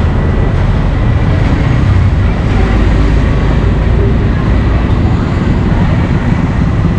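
Steady low rumbling noise, with voices faintly in the background.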